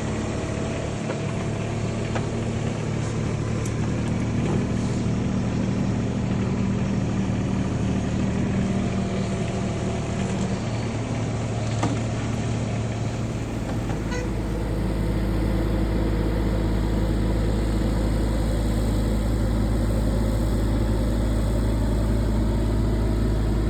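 A 2-tonne LiuGong mini excavator's diesel engine running steadily. About halfway through, its note changes and a stronger low drone sets in.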